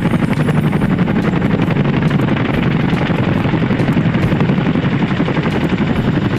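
Several CH-47 Chinook tandem-rotor helicopters flying low past, their rotors making a loud, fast, steady chopping beat.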